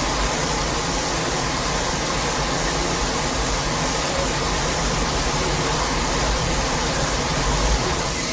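Kaiju breath-attack sound effect: a steady, dense rushing noise with a deep rumble underneath, held without a break for several seconds.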